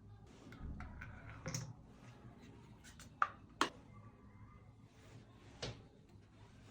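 Handling noise from small equipment: several sharp clicks and light knocks, two louder ones close together about halfway through, over a low steady hum.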